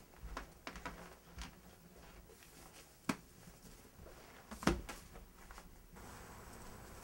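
Faint handling noises in a quiet room as a person gets up off a cushioned sofa with a book: a few soft rustles and clicks, a sharp click about three seconds in and a louder thump just before five seconds. Near the end a steady faint hiss takes over.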